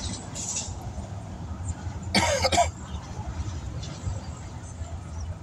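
A person coughs once, loudly, about two seconds in, over a steady low rumble.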